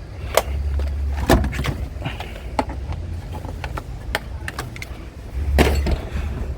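Scrap items being picked up and set down: a handful of separate knocks and clatters, the loudest about a second in and near the end, over a steady low rumble.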